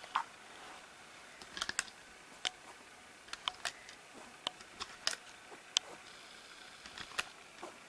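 Irregular small clicks and taps of a plastic hook and rubber bands being stretched onto the plastic pegs of a Rainbow Loom.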